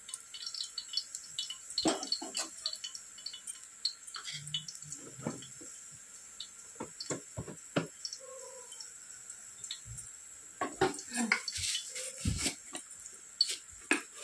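Oil heating in an aluminium kadai on a gas stove, with scattered small crackles and clicks over a faint steady hiss, and a few louder knocks near the end.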